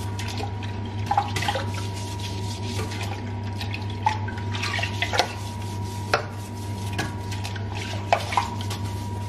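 Toilet brush scrubbing a ceramic toilet bowl: wet swishing of the bristles through the water, with irregular sharp knocks and clicks as the brush hits the porcelain, over a steady low hum.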